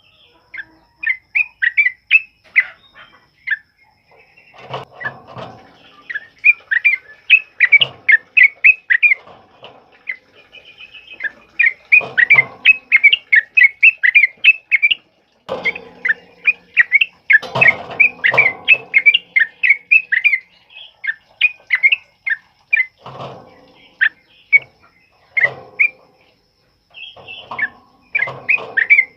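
Yellow-vented bulbul (trucukan) singing its loud, rapid rolling 'ropel' song: fast runs of sharp chirping notes, in several bursts with short pauses between them.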